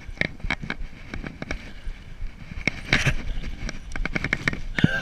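Close rustling and brushing of clothing and a cloth towel against a body-worn action camera, with scattered short clicks and knocks and a louder burst about three seconds in.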